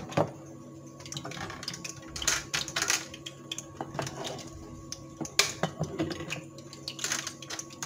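Oil heating in a small frying pan on an induction cooktop, giving off light, irregular crackles and clicks, over a steady hum from the cooktop. The oil is coming up to frying temperature.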